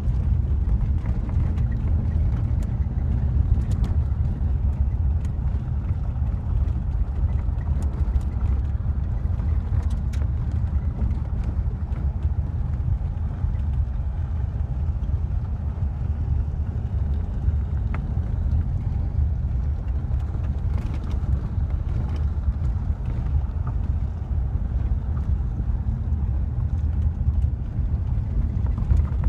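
Steady low rumble of a car driving slowly on a gravel road, heard from inside the cabin: tyre and road noise with scattered faint ticks.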